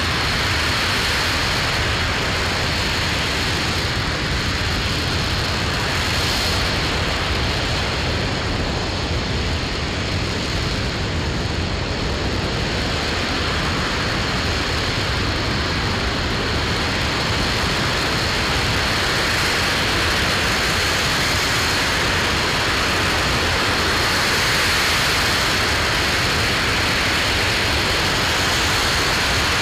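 RS-25 liquid-hydrogen/liquid-oxygen rocket engine firing at a steady thrust: a constant, heavy rushing noise that does not change in pitch or break off.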